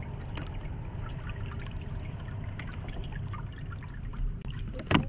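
Small waves lapping and trickling against a kayak hull, over a steady low rumble. A sharp knock sounds near the end.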